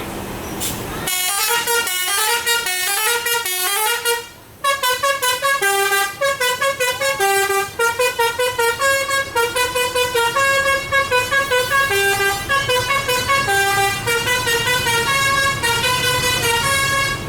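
Basuri telolet bus horn, a multi-tone musical horn, playing a quick tune of short pitched notes. It starts about a second in, breaks off briefly around four seconds, then runs on in rapid staccato notes.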